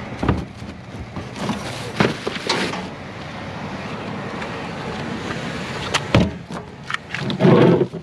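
Rummaging through trash in a dumpster: bags and discarded items rustling and knocking, with several sharp knocks and a louder rustling burst near the end, over a steady rushing background noise.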